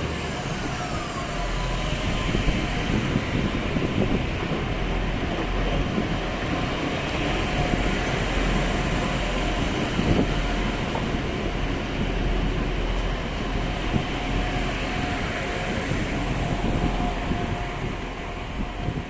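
Train moving through the station: a steady rumble and rolling noise, with a faint electric whine falling in pitch in the first second.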